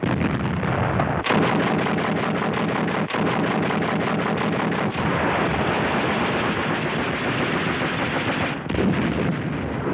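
20 mm Flakvierling 38 quad anti-aircraft cannon firing in continuous rapid automatic bursts, a rattle of closely overlapping shots that eases only briefly near the end.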